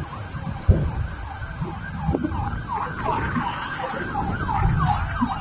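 Emergency vehicle siren in a fast yelp, sweeping up and down about three times a second and growing louder in the second half, over a low rumble. A single thump about two-thirds of a second in is the loudest moment.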